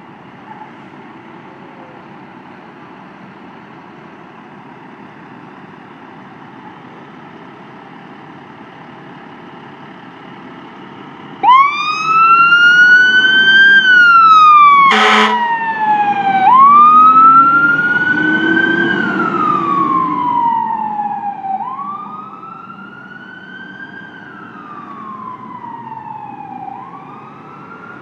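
Fire engine idling with a steady rumble. About eleven seconds in, its siren starts wailing loudly, each cycle rising quickly and falling slowly. A short horn blast comes a few seconds later and the engine revs up as the truck pulls away. The siren then grows fainter as it drives off.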